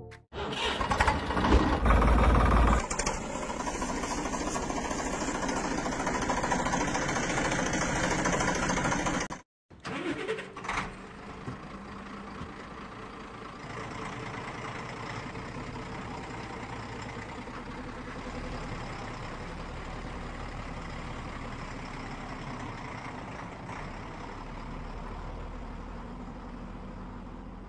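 A vehicle engine starting with loud bursts in the first few seconds, then running steadily. After a brief break about a third of the way in, a quieter engine runs on steadily.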